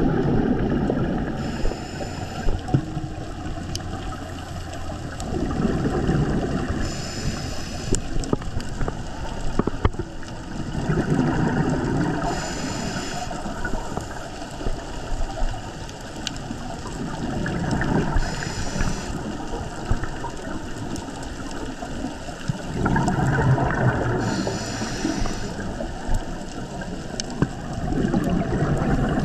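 Scuba diver breathing through a regulator underwater: a short hissing inhale through the regulator, then a rush of exhaled bubbles, about every five to six seconds, for about five breaths.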